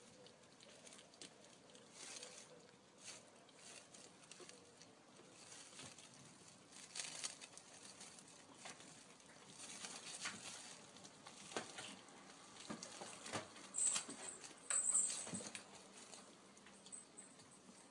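Kittens play-fighting: faint, irregular scrabbling, pattering and scratching of paws and claws on a shaggy rug and a straw scratching toy. The scuffling grows busier past the middle, with the loudest sounds coming from two short high-pitched scrapes.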